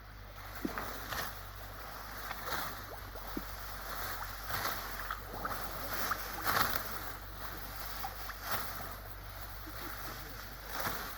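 Hand work in a rice field: irregular rustling swishes and light splashes, a stroke every half second to a second, over a low steady hum.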